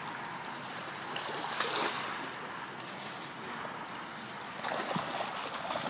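Steady rush of running water, with light splashes coming in near the end.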